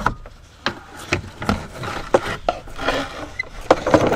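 A Mercedes W211's plastic lower engine cover (undertray) being pulled free of the car's underbody. It scrapes and rubs against the chassis, with a scatter of irregular knocks and clicks that grow busier near the end.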